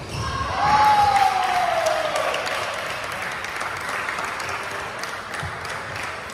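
Spectators clapping, swelling about half a second in and then slowly fading. A single drawn-out falling tone sounds over the clapping during the first two seconds.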